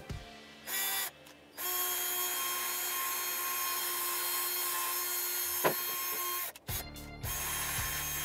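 Cordless drill spinning a wire wheel brush against a welded steel nut and angle bracket, running steadily for about five seconds, with a brief burst just before and two short bursts near the end. Background music with a low repeating beat returns near the end.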